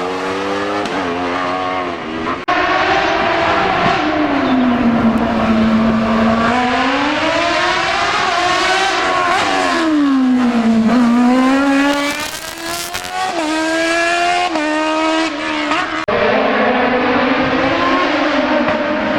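Racing car engine revving hard through a slalom course, its pitch climbing and dropping again and again as the driver accelerates, lifts and shifts gear between the chicanes. The sound breaks off abruptly about two and a half seconds in and again near the end.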